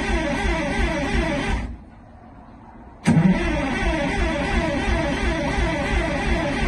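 Detroit Diesel 6V92 two-stroke V6 in a bus being cold-started, churning in a fast, even pulsing rhythm. It cuts off about a second and a half in, then comes back abruptly with a sharp bang a second and a half later and keeps going.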